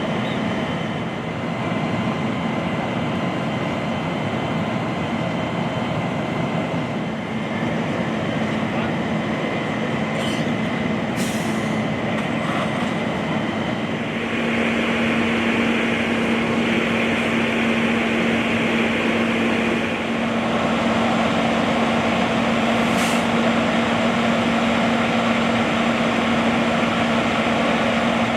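An engine running steadily, with a constant hum and a noisy drone. About halfway through it gets louder and brighter, as if raised to higher revs.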